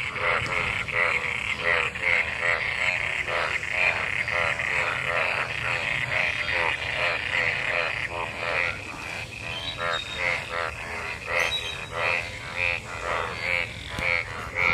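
A breeding chorus of many frogs calling together after monsoon rain: dense, overlapping croaks repeating several times a second without a break.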